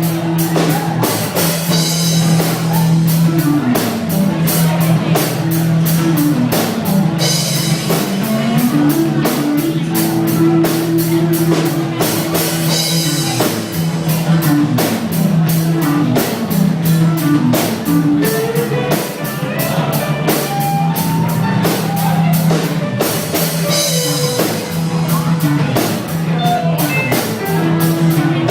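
Rock band playing: a drum kit keeps a steady beat with recurring cymbal crashes over a bass line and guitar.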